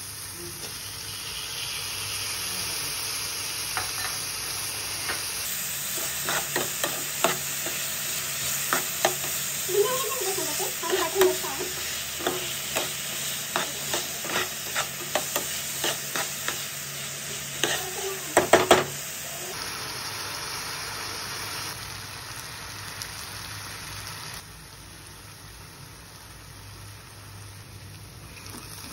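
Diced vegetables (onion, carrot, potato, green chilli) sizzling in hot oil in a pan while a spoon stirs them, clacking and scraping against the pan many times through the middle stretch. After that only the steady sizzle remains, dropping in level for the last few seconds.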